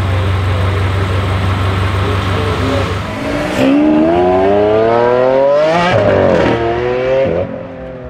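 BMW M5 F90's twin-turbo V8 running through a straight-pipe exhaust, idling steadily, then accelerating hard. About halfway through the engine note climbs for a couple of seconds, dips at a gear change and climbs again, then falls away near the end.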